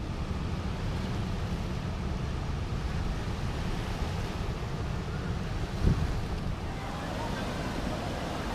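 Rushing, churning water from a dam's open spillway gates: a steady noise with heavy wind buffeting on the microphone, and one brief low thump about six seconds in.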